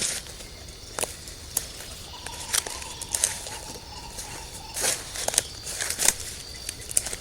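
Irregular sharp snaps and crackles, about a dozen, spread unevenly over a steady insect background with a thin high insect tone.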